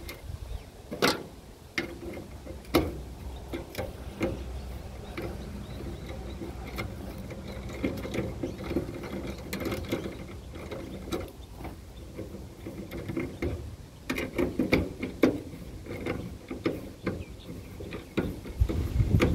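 Ratchet wrench clicking in short runs, with irregular metal clanks and knocks, as bolts are undone to strip down a small generator.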